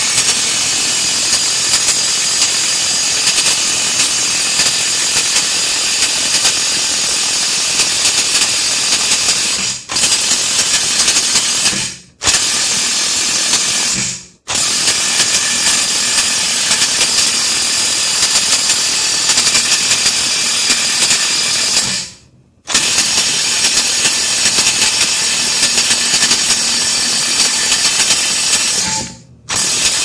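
Chicago Electric 18V cordless impact wrench hammering on a factory-torqued wheel hub assembly bolt that does not break loose. It runs in long bursts broken by five short pauses in the trigger.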